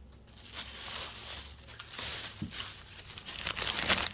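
Plastic crinkling and rustling as packaged items are handled. It starts about half a second in and grows louder near the end.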